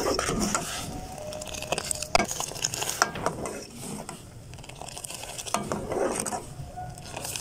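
A steel ladle stirring boiling green tea in an aluminium saucepan, knocking and scraping against the pot a few times, with the bubbling of the boil underneath. The tea is being cooked hard to bring out the colour of the kahwa for Kashmiri chai.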